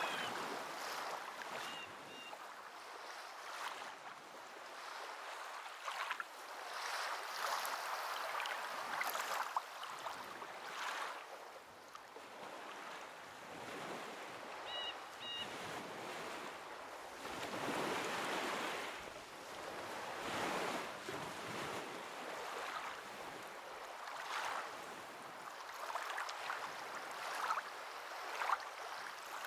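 Water washing and rushing, swelling and easing every few seconds, with faint short high chirps about two seconds in and again midway.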